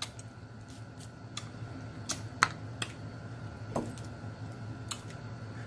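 Crab shell clicking and cracking in irregular, sharp clicks as it is picked apart by hand to get the meat out, with a short low hum from the eater about four seconds in.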